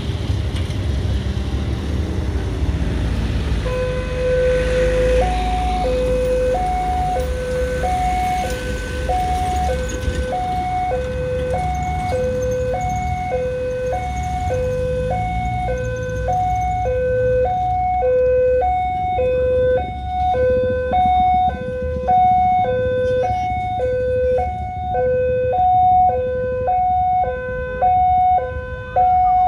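Railway level-crossing warning siren, coming on about four seconds in as a fast two-tone signal alternating high and low, about two notes a second. It warns of an approaching train while the crossing barriers close. Road-traffic rumble runs underneath at first.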